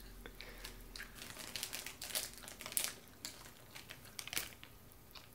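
Candy bag crinkling, with irregular small rustles and crackles as a hand rummages inside it.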